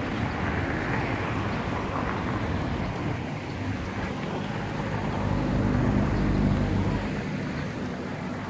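Road traffic noise: a steady hum of passing cars. One vehicle's engine grows louder about five seconds in and eases off near the end.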